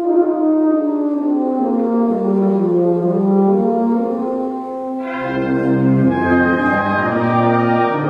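Euphonium playing a mellow solo melody in held notes over a soft wind-band accompaniment; about five seconds in, the full wind band comes in with low brass bass notes and a fuller sound.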